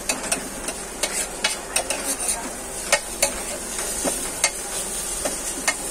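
Food frying in a hot pan with a steady sizzle, broken by irregular sharp clicks and scrapes of a utensil against the pan.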